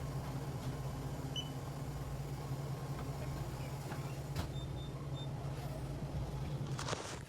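Steady low mechanical hum, with a few faint clicks and knocks over it.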